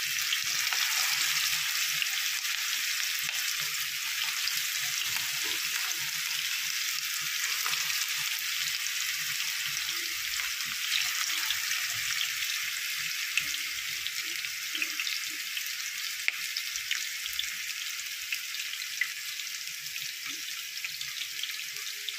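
Nargisi kofte, minced-meat balls wrapped around eggs, frying in hot oil on a medium flame: a steady sizzle with scattered small crackles and pops, easing a little over time.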